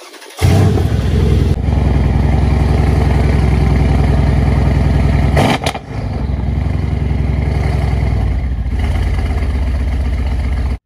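Mercedes-AMG C63 S twin-turbo V8 started up, catching suddenly and running loud and steady at idle through its exhaust.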